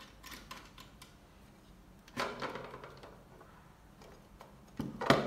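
Hard-drive caddy being pulled out of a mobile DVR's drive bay: a few light clicks, a sliding scrape about two seconds in, and a sharp click, the loudest sound, just before the end.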